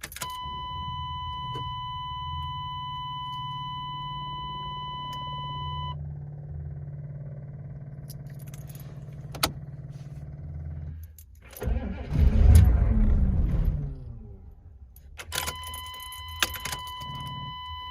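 A 1994 Suburban's 6.5 L diesel V8 being cranked in a hard start, with a loud surge of engine noise about twelve seconds in that falls in pitch over a couple of seconds. A steady electronic warning tone sounds for the first six seconds and again near the end.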